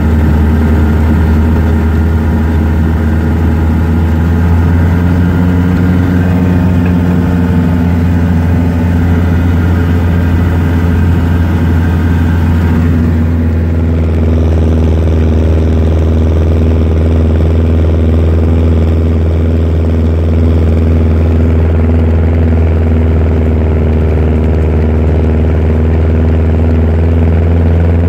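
Thiokol 1404 Imp snowcat's engine running steadily as the machine drives along, a loud low drone that barely changes in pitch. A little past the middle the higher hiss drops away and the drone sounds duller.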